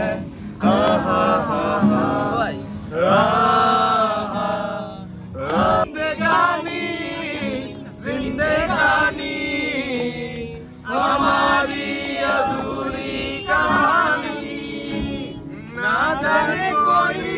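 Voices singing a song together, a man's voice to the fore, to a strummed acoustic guitar, in sung phrases with short breaks every few seconds.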